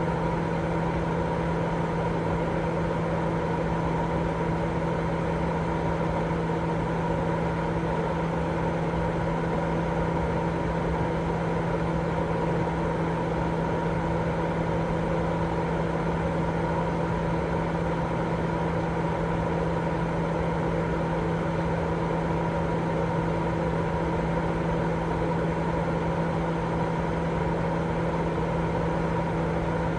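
Continuous white-noise sleep sound: an even hiss with a steady low hum running under it, unchanging throughout.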